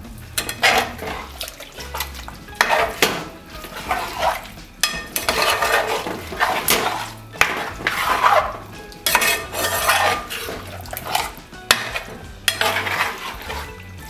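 Spoon stirring chicken pieces through thick, wet coconut masala in a large metal pot, scraping and knocking against the pot in irregular strokes.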